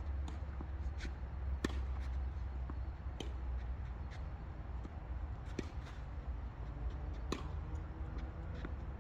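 Tennis rally: the ball struck by rackets and bouncing on the court, a sharp pop every second or so at uneven intervals, over a steady low rumble.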